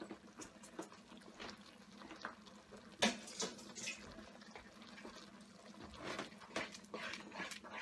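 Wooden spatula stirring a thick, wet spinach sauce in a non-stick pan: soft wet squelching and scraping, with irregular small clicks, the sharpest about three seconds in. A faint steady hum runs underneath.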